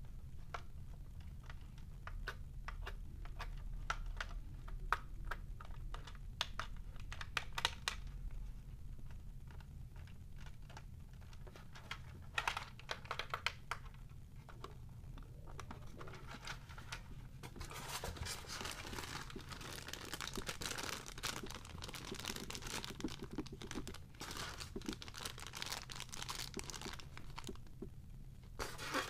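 Plastic clicks and taps from handling a drone's hard-plastic remote-control transmitter, then, from a little past halfway, the dense crinkling of a thin plastic bag being handled as the packed accessories are taken out.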